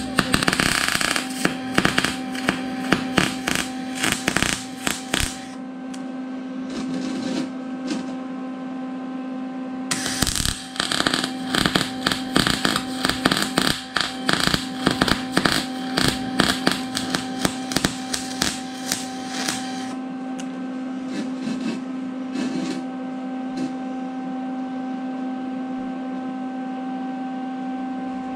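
MIG welder arc crackling while welding the yoke onto a steel driveshaft tube, in two runs: one of about five seconds, then a pause of about four seconds, then a run of about ten seconds. A steady hum carries on underneath and is all that is left after the second run stops.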